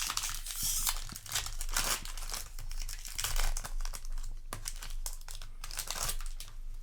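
Foil wrapper of a Magic: The Gathering play booster pack being torn open and crinkled by hand: a dense run of irregular crackling rustles that thins out near the end.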